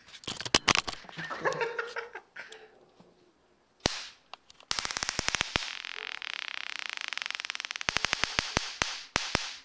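Electric fly-swatter racket zapping flies: sharp snapping sparks on its high-voltage mesh, then from about five seconds in a rapid crackle of arcing held for several seconds as a fly is caught across the grid, ending in a few separate snaps.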